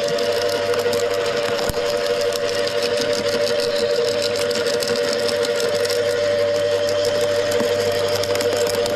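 Wood chipper running steadily, its motor and cutter giving a constant whine over a broad rushing noise, with one brief click about two seconds in.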